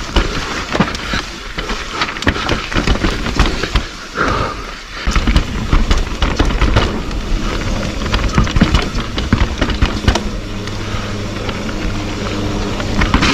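Mountain bike running fast down a rough dirt trail: tyres rumbling over dirt and rocks, chain and frame clattering at every bump, with wind noise. A steady low buzz joins in about ten seconds in.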